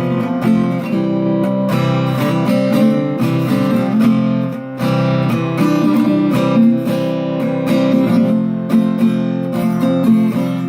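Acoustic guitar strummed in a steady run of chords, with a brief drop in level about four and a half seconds in.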